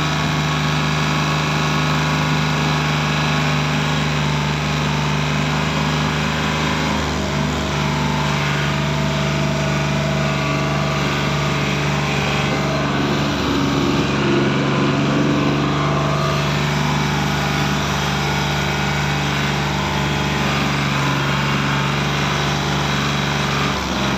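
A tractor's diesel engine running steadily as the tractor drives along the road pulling a trolley, heard close up from the driver's seat. The engine note shifts slightly in pitch a few times.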